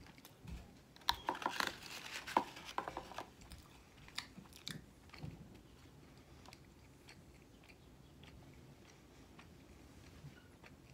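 Close-miked bite and chewing of a McDonald's Filet-O-Fish sandwich: a busy run of mouth clicks and smacks about one to three seconds in, then quieter, scattered chewing.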